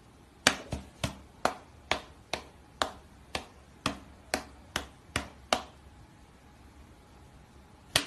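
A cat's paws slapping against a person's open palm in a patty-cake game: about a dozen sharp slaps over five seconds, a pause of about two seconds, then another slap near the end.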